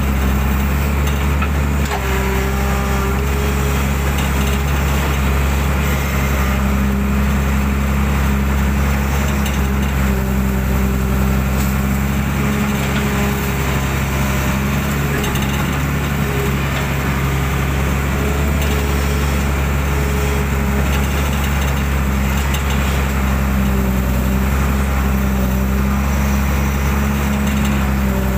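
Hydraulic excavator's diesel engine running steadily under load, heard from the cab, with a pitched hydraulic whine that swells and fades as the boom and bucket scoop and lift mud from a drainage ditch.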